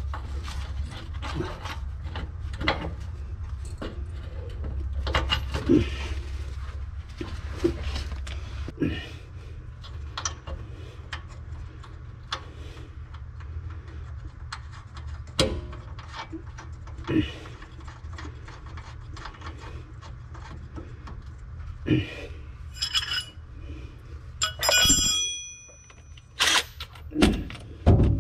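Scattered metal clinks, knocks and rubbing of tools and mounting hardware as a rear shock absorber is fitted and bolted to its mount, a few with a short metallic ring, over a steady low hum.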